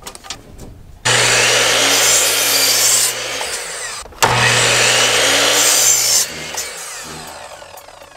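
Electric miter saw crosscutting wooden studs, twice: each time the motor runs up and the blade goes through the wood for about two seconds, then the saw winds down.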